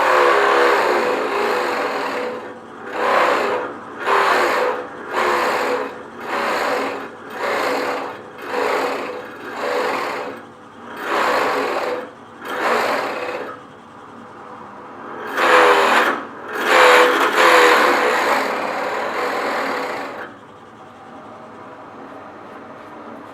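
Pillar drill with a flat bit boring into a workpiece held in a machine vise, fed in slowly in repeated surges about a second apart, then a longer steady cut. About 20 seconds in the cutting stops and only the drill's motor is heard running on.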